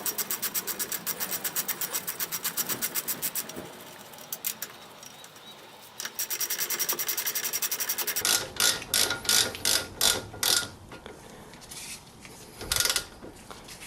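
Ratchet wrench tightening a brake caliper bolt: two runs of rapid, even clicking, then several slower, separate clicks as the bolt is brought tight.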